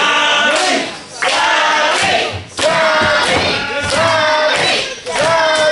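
Wrestling crowd chanting in unison: a short phrase repeated over and over, about once every second and a quarter, each ending on a held note.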